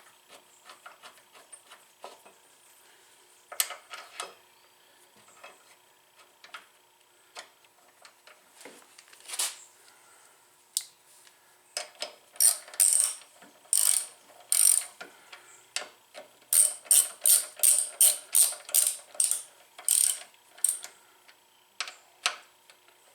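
Socket ratchet driving the front brake caliper bolts back in: scattered clicks at first, then bursts of ratcheting clicks, with quick regular strokes, about two or three a second, in the second half.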